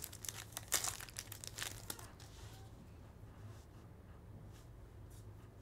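A trading-card pack's foil wrapper being torn open and crinkled: a quick run of sharp crackles for about two seconds, then only a few faint rustles as the cards are handled.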